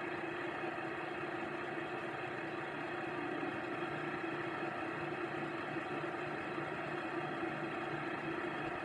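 DCC sound decoder in a model Hitachi Class 800 bi-mode train, playing the standing unit's idling hum through its small speaker. From about four seconds in, a low pulsing throb joins at about two beats a second.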